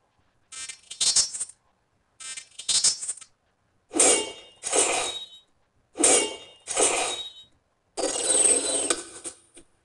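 A string of short metallic rattling and jingling noises, about seven of them roughly in pairs, the last one longer.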